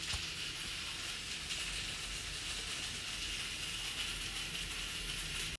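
Steady sizzling hiss of food cooking in a pan on the stove.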